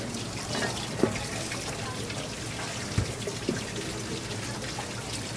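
Steady running water with a few sharp knocks, about one, three and three and a half seconds in, as the heavy shell of a green turban snail (yakogai) is handled on a cutting board.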